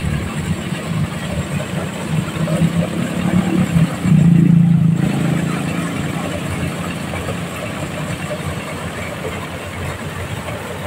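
A diesel-engine-driven corn sheller running steadily while threshing corn cobs: a steady low hum over a noisy rattle. It swells louder for about a second around four seconds in, then settles slightly quieter.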